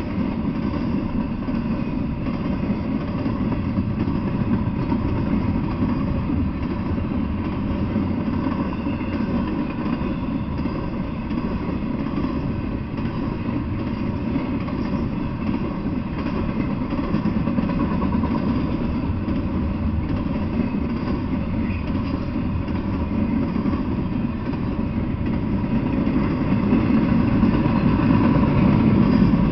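Intermodal freight train of double-stack container well cars rolling past, a steady rumble of wheels on the rails that grows a little louder near the end.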